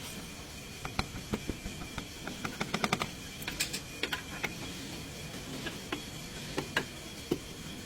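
Irregular sharp mechanical clicks and taps, with a quick run of about eight clicks near three seconds in, over a steady hum.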